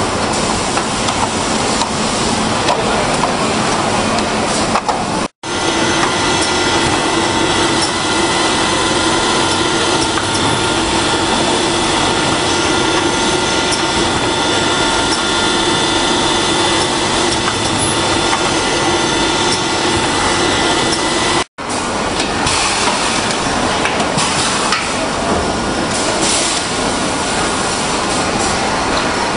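Continuous machine noise from industrial machinery, a dense hiss with faint steady hums, broken by two brief dropouts about 5 and 21 seconds in.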